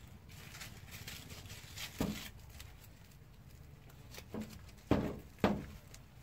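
A few short, soft knocks and rustles from handling a bare-root vine and loose soil by hand at a planting hole: one about two seconds in and a quick cluster of three near the end, over a low background rumble.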